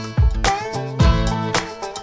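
Background music: guitar over a steady drum beat, with a sliding note in the middle.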